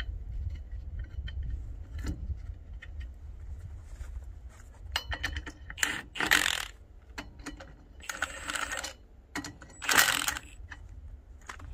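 Cordless impact wrench hammering on a wheel's lug nuts in three short bursts, about six, eight and ten seconds in, with small metal clinks of nuts and tools between.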